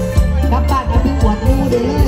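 Live Thai mor lam band music at full volume, with drums, electric bass and keyboards playing a steady beat.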